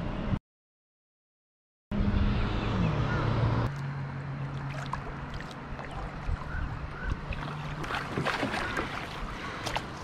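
A kayak paddle dipping and splashing in the water, with scattered light knocks and clicks that grow more frequent near the end. A steady low hum runs under it for most of the time, and the sound cuts out completely for about a second and a half near the start.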